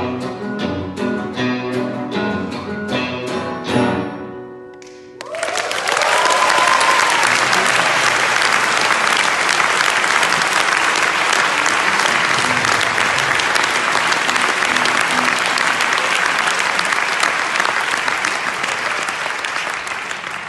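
Acoustic and electric guitars strumming the song's last chords, which stop and ring out about four seconds in. After a short lull a theatre audience applauds loudly and steadily for about fifteen seconds, with one cheer early in the applause.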